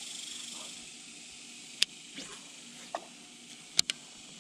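A high, steady insect drone that fades out about a second in, followed by a few sharp clicks and taps, the loudest a quick pair near the end.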